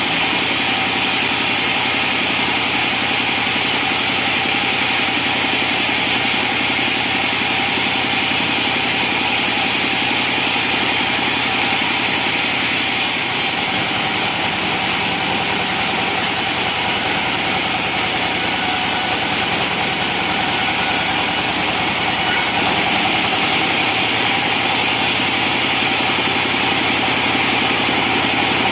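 Band sawmill running steadily, its engine and saw giving a constant drone with no rise or fall in load.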